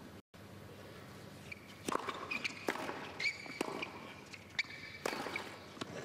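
A tennis rally on a hard court: sharp racket-on-ball strikes and bounces about once a second, with short sneaker squeaks between the shots.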